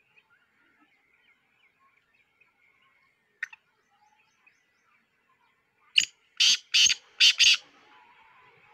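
Black francolin calling: a quick series of five loud, harsh notes about six seconds in, over faint chirping of small birds. A single sharp click comes a few seconds before the call.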